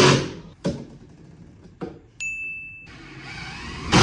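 Whoosh sound effects, a loud one at the start and another swelling up at the end. Between them come two sharp knocks and a short high beep about two seconds in.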